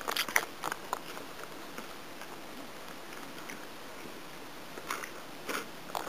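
A plastic spoon stirring food in a metal camp pot, clicking and scraping against the pot: a cluster of taps in the first second, quiet stirring, then more taps about five seconds in.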